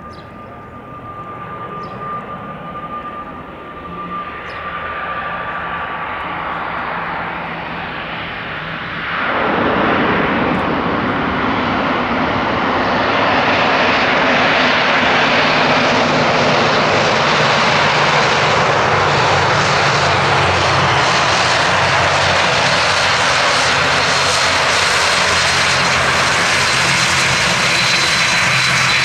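Twin turboprop engines and propellers of an ATR 72-600, growing louder, then jumping suddenly to a loud steady roar about nine seconds in and holding there.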